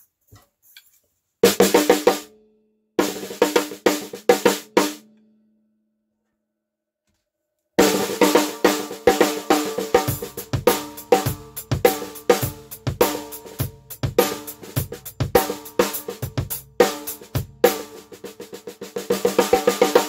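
Worldmax Black Dawg 14x5 nickel-over-brass snare drum played with sticks. Two short fills come about a second and a half in and at three seconds, then a pause, then a long run of rapid strokes and fills from about eight seconds on. A low ring lingers briefly after each run stops.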